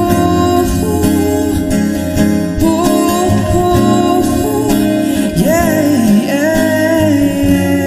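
Live ballad music played through a Mackie ShowBox speaker: acoustic guitar and keyboard, with a melody sliding between notes from about five seconds in.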